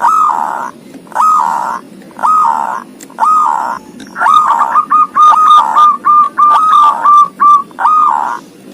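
Zebra dove (perkutut) cooing loudly: a slow series of drawn-out coos about one a second, then a quick run of short clipped coos, ending on one longer coo.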